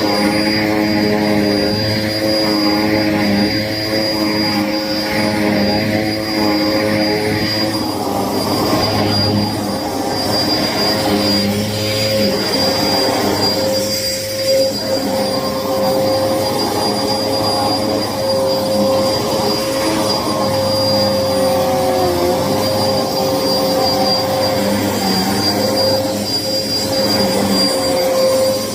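Hoover vacuum cleaner running steadily with a constant motor whine; the machine is clogged. Its sound shifts slightly about eight seconds in.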